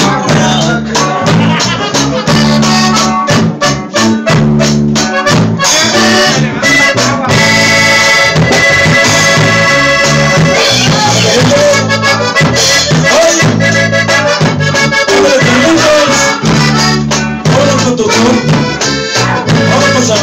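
Live Latin band music: an accordion carries the melody over guitar and a bass line.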